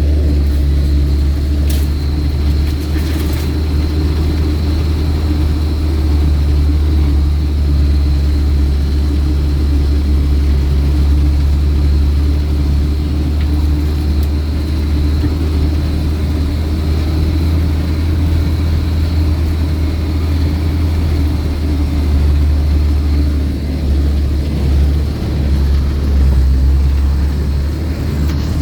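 UAZ off-road vehicle driving, its engine running steadily with a deep low rumble and a faint high steady whine over it. A couple of brief clicks come about two and three seconds in.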